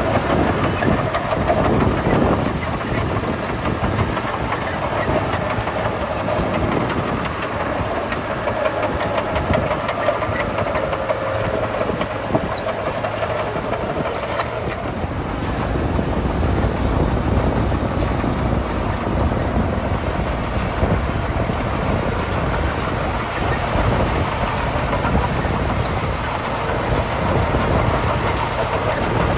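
Komatsu D41P crawler bulldozer working gravel, its diesel engine running steadily under load.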